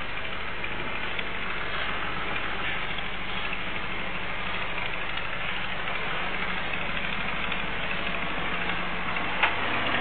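Heavy diesel engines running steadily: a sand-laden dump truck driving slowly past, with an excavator working behind it. The sound is thin and hissy, as picked up by a security camera's microphone.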